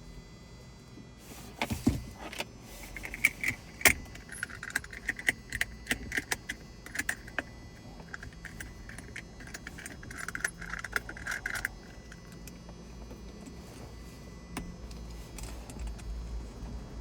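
Small hard metal objects jingling and clicking as they are handled, in a run of sharp clicks and short jingles that dies away after about twelve seconds.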